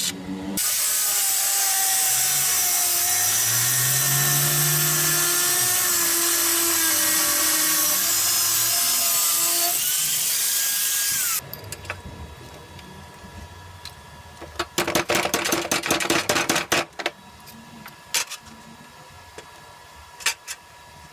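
A handheld power tool runs for about ten seconds, its pitch drifting up and down slightly, then stops abruptly. Afterwards come a quick run of clatters and a few single clicks of parts or tools being handled.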